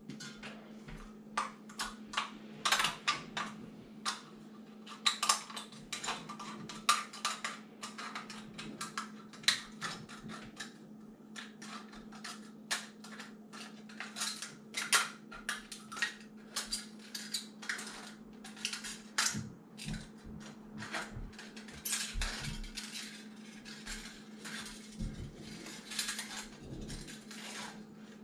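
Scissors snipping and crinkling through the thin aluminium wall of a drinks can as it is cut round, in irregular clicks and crackles. A low steady hum runs underneath.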